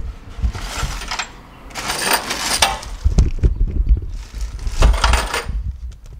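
Handling noise around a car's engine bay: light metallic clinks and three spells of rustling or scraping, over low thumps from the handheld camera moving.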